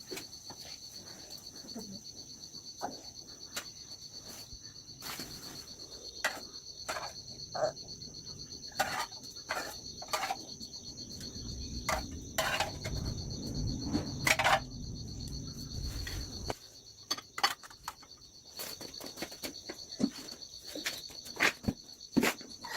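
Steady high-pitched insect chorus holding two even tones throughout, with scattered short knocks and clicks over it. A low rumble starts about twelve seconds in and cuts off suddenly about four seconds later.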